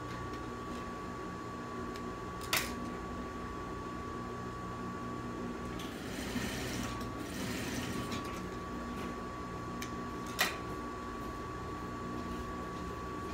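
Industrial sewing machine: a steady motor hum, with a short run of stitching about six to eight seconds in. Two sharp clicks stand out, one near three seconds in and one about ten seconds in.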